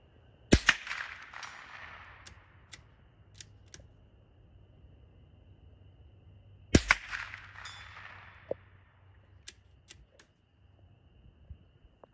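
Two .22 LR rifle shots from a Ruger American bolt-action rimfire, about six seconds apart, each followed by an echo that dies away over a second or so. A few faint clicks come between the shots.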